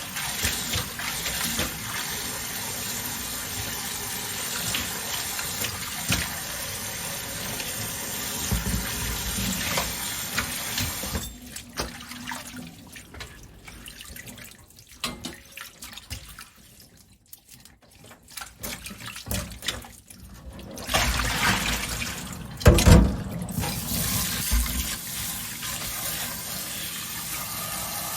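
Water running from a kitchen tap into a sink. It stops for several seconds of quieter handling with scattered clicks, then runs again, with one loud knock shortly after.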